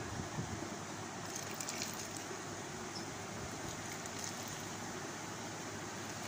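Clear soda poured into a glass of strawberry drink over crushed ice, fizzing with a few faint crackles of bursting bubbles, over a steady background hiss.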